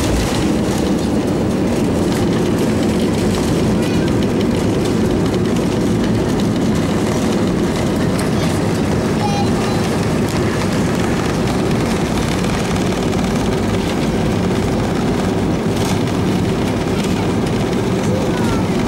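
Steady cabin noise inside an Airbus A320-232 rolling out on the runway and turning onto the taxiway after landing: the even hum of its IAE V2500 engines at low power and the rumble of the landing gear on the pavement.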